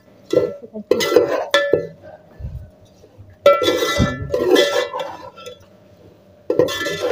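Metal slotted spoon scraping and clanking against a metal cooking pot, in three bouts, with the pot ringing, while lentils are stirred and fried in spiced oil.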